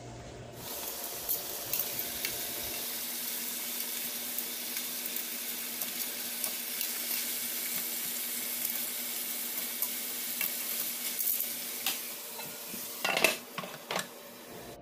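Chicken pieces in sauce sizzling in a frying pan while a spatula stirs and scrapes them, with small clicks throughout. Near the end come a few louder clatters as the glass pan lid goes on; the chicken is nearly cooked.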